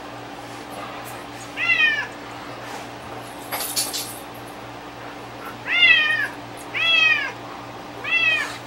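A young black-and-white cat meowing four times. Each meow is about half a second long and rises then falls in pitch; one comes early and three follow close together near the end. A short, quieter rustling clatter falls between them.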